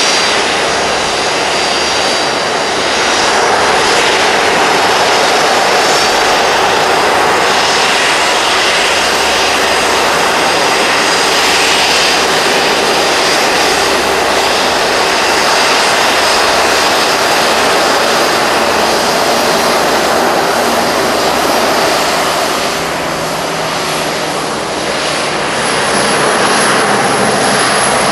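Boeing 737-400's CFM56-3 turbofan engines running at taxi power as the airliner taxis past, a steady loud jet noise that dips briefly about three-quarters of the way through.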